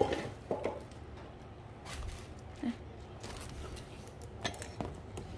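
Scattered light clicks and knocks, handling noise from moving the camera or items around, over a low steady hum.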